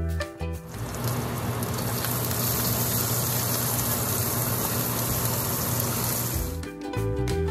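Diced onions sizzling in a hot wok: a steady hiss that comes in suddenly about half a second in and stops near the end. Light plucked-string background music plays before and after it.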